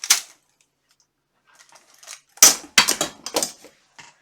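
Steel armor plates clinking and clanking together as they are handled and set down. A couple of light clinks come first, then a cluster of several loud metal strikes about halfway through.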